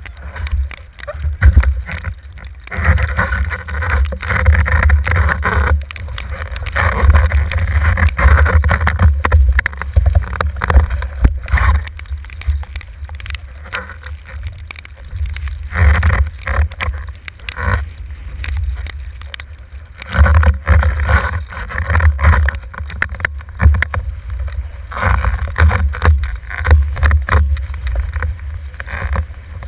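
Wind buffeting the microphone of an action camera on a windsurfer's boom, a heavy rumble that never stops. Over it come repeated surges of rushing water and spray as the board planes across the chop.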